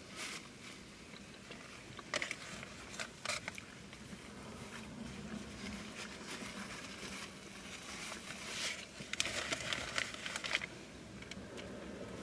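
Eating sounds: chewing of burgers, with paper wrappers and napkins crinkling in short rustles, a couple about two to three seconds in and a longer cluster near the end.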